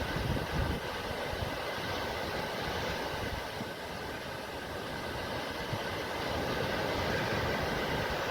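Sea waves washing on the shore: a steady hiss of surf that eases off a little midway and swells again toward the end.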